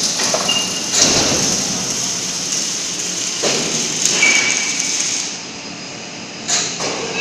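Workshop background noise: a steady rushing hiss whose upper part drops away about five seconds in, with a few scattered knocks.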